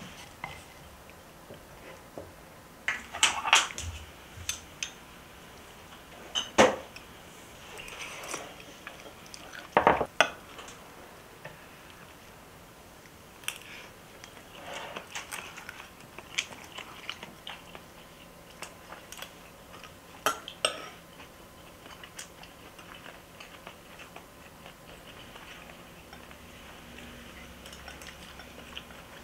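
Tableware clatter: a rice paddle and spoon scraping and knocking against an earthenware clay pot and ceramic rice bowls as rice is served and eaten. It comes as scattered sharp clinks, with the loudest knocks in the first ten seconds.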